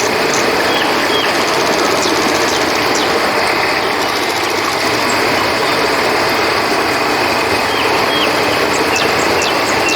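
River water rushing steadily, with a few faint short chirps from crickets scattered over it.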